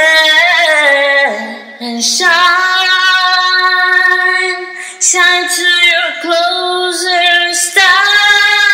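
A woman singing long held notes without words, with vibrato, in three or four phrases separated by short breaths; the voice glides down about a second in.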